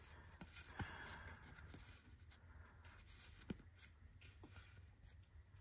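Near silence with faint rustling and a few light ticks of trading cards being handled and flipped through, the clearest about a second in and again midway.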